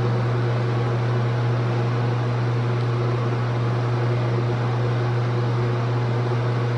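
A steady machine drone: a low electric-motor hum under an even rushing noise, with no change in pitch or level.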